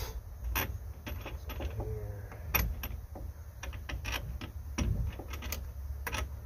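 Irregular clicks and knocks of a boat steering wheel being fitted onto its rotary helm shaft and worked by hand, over a steady low rumble.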